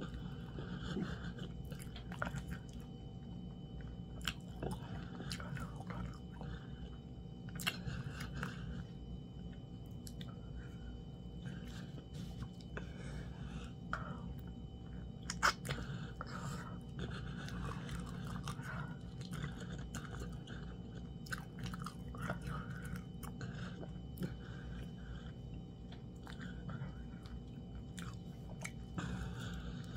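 A person chewing fufu and meat close to the microphone, with frequent short mouth clicks, over a steady low hum.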